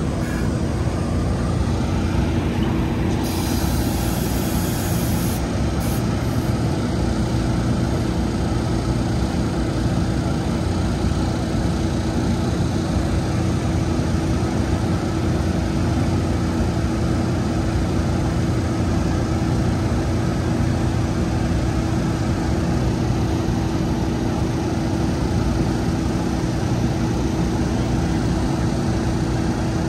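A New Jersey Transit Arrow III electric multiple-unit train standing at the platform, its onboard equipment giving a steady hum with a steady low rumble and a held tone.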